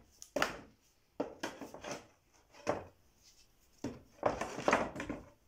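Claw hammer knocking against the boards of a wooden pallet to work the slats loose from the frame: a series of irregular sharp knocks, several close together near the end.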